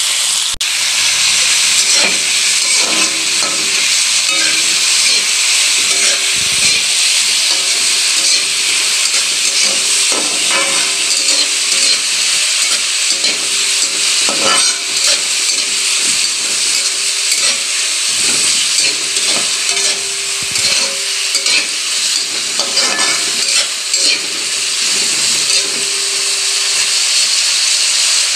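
Chopped vegetables sizzling in hot oil in a steel pan, with a spatula repeatedly scraping and tapping against the metal as they are stirred.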